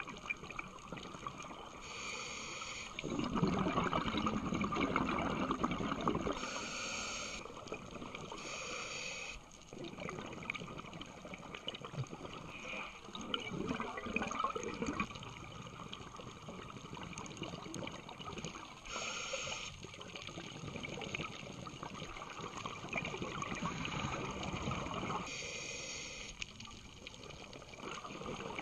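Scuba diver breathing through a regulator underwater: short hissing inhalations alternate with long bubbling exhalations, a breath every several seconds, the loudest exhalation about three seconds in.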